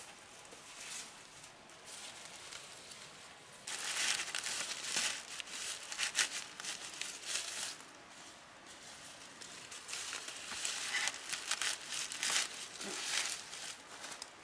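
Rustling and crinkling of something dry being handled, in two louder stretches: one starting about four seconds in, another about ten seconds in.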